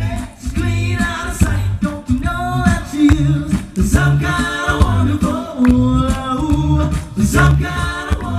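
An a cappella vocal band singing in harmony with no instruments, voices carrying the chords over a rhythmic sung bass line.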